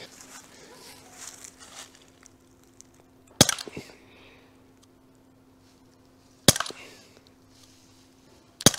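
Walther CP99 Compact CO2 air pistol firing 4.5 mm BBs: three sharp shots, the first about three seconds in, the next three seconds later and the last about two seconds after that.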